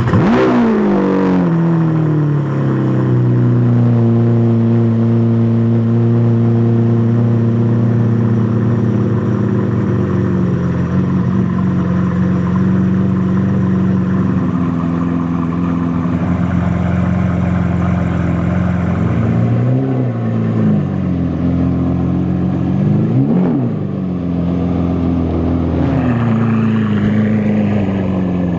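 Straight-piped Lamborghini Aventador SV V12 (iPE titanium test pipes and straight pipes) settling from its start-up flare into a steady high idle, which drops to a lower idle about twelve seconds in. Two short throttle blips come about twenty and twenty-three seconds in.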